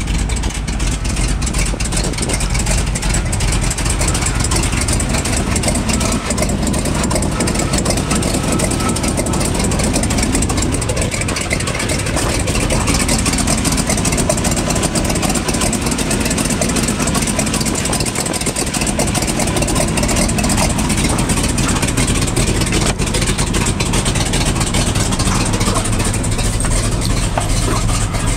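1992 GMC Top Kick box truck's engine idling steadily.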